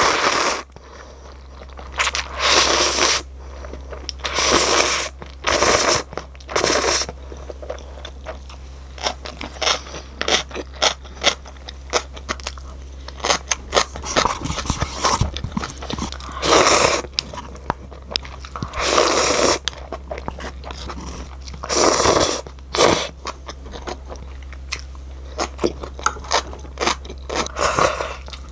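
Close-up eating of mala jjajang instant noodles: about nine loud slurps, each under a second, bunched near the start and again between about 16 and 23 seconds in, with chewing and small clicks in between.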